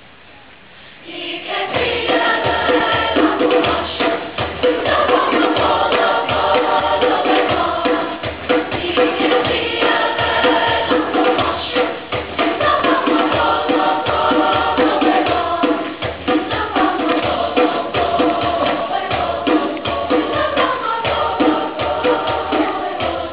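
Children's choir singing together over an accompaniment with a steady beat, coming in about a second and a half in.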